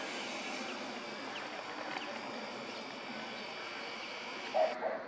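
Steady outdoor background noise with a faint high hum. Near the end a dove or pigeon starts cooing.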